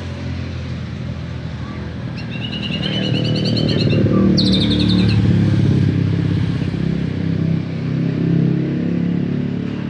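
White-rumped shama (murai batu) singing two short, quick trilled phrases about two seconds in, over a louder engine rumble from a passing motor vehicle that swells through the middle.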